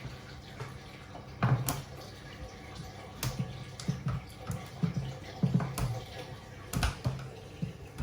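Irregular sharp clicks, crackles and short knocks as old wood veneer is worked off a dashboard with a hot iron and a towel, the veneer pulling away from the glue underneath.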